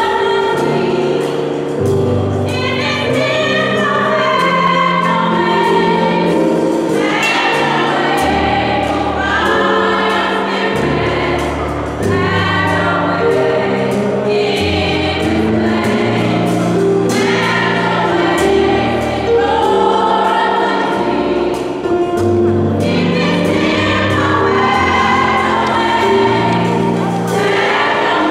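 Youth choir singing a gospel praise and worship song in sustained phrases, with instrumental accompaniment and held bass notes underneath.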